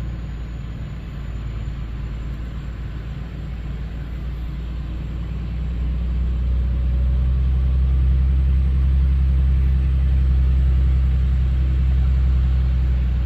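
Log truck's diesel engine running steadily while the truck drives along, heard from inside the cab as a low drone that grows louder from about six seconds in.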